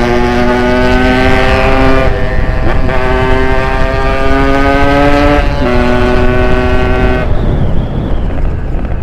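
Yamaha RX-King's ported two-stroke single revving hard under acceleration: the pitch climbs steadily in one gear, breaks briefly at a gear change, and climbs again, twice over, before the throttle comes off near the end. A low wind rumble runs underneath.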